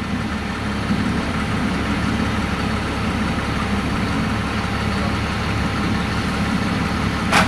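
An engine idling steadily, with one sharp knock near the end.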